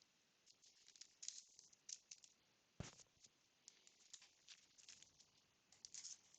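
Faint rustling and light clicks of trading cards being handled and flipped through, with a soft knock about three seconds in.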